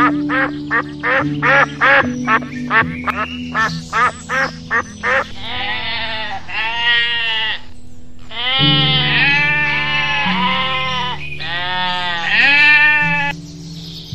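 Ducks quacking in a rapid run of short calls for about the first five seconds, then a sheep bleating several times in long, wavering calls. Soft background music plays underneath.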